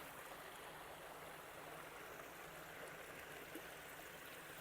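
Faint, steady rush of a small creek flowing over a little rock-and-concrete waterfall.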